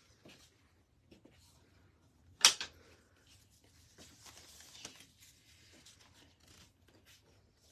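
Rustling and handling noises, with one sharp, loud crack about two and a half seconds in and a longer hissy rustle a little later.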